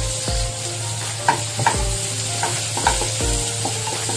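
A wooden spatula stirs and scrapes sliced onions and ginger-garlic paste around a non-stick pan in repeated strokes, over a steady sizzle of oil frying.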